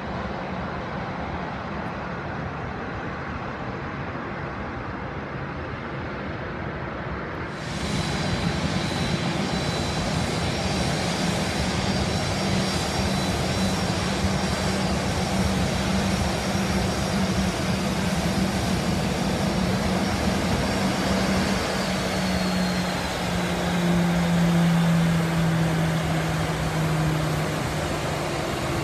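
Boeing 737-800 jet engines running as the Ryanair airliner taxis, a steady whine over a rushing hiss. About a quarter of the way in the sound suddenly gets louder and hissier. Past the two-thirds mark the whine drops a little in pitch.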